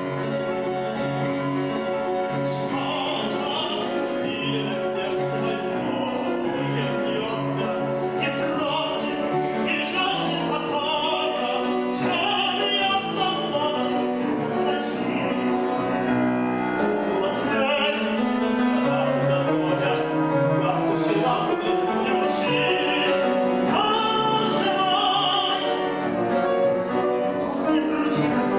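Male classical singer, a tenor, singing in full operatic voice with vibrato over piano accompaniment.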